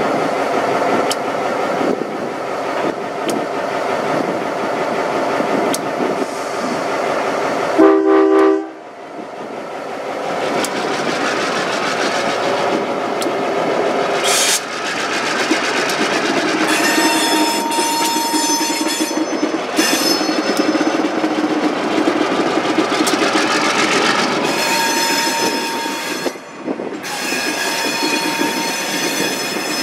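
An EMD SW1500 switcher locomotive's diesel engine runs as it and its freight cars roll past on the track. A short horn blast sounds about eight seconds in. Later, the wheel flanges squeal in high, thin tones.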